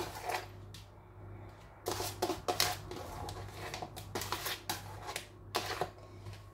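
Sliced onions shaken off a plate and scattered by hand onto a pizza on a paper-lined baking tray: irregular light rustling and tapping in a few short clusters, over a faint steady low hum.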